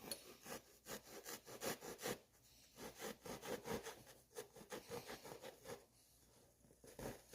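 Serrated bread knife sawing through seat foam in quick, faint back-and-forth strokes, about four or five a second, in short runs with brief pauses.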